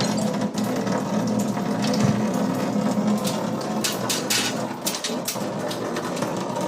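Electric water pump motor running with a steady hum, with water rushing and a few short hissing spurts about four to five seconds in.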